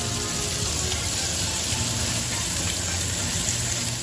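Bacon sizzling in a frying pan, a steady hiss, with background music under it.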